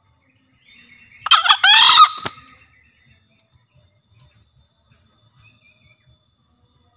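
Green junglefowl rooster giving one short, two-part crow about a second in.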